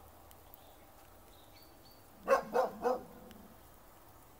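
A dog barking three times in quick succession, a little over two seconds in.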